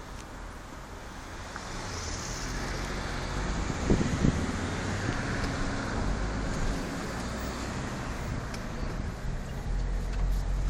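Campervan engine and tyre noise heard from inside the cab while driving, gradually getting louder. A couple of low thumps come about four seconds in.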